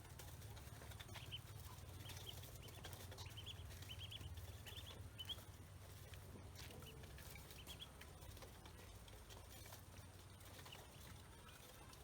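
Ducklings peeping: faint, quick high-pitched peeps in clusters, thickest in the first half and sparser later, over a steady low rumble.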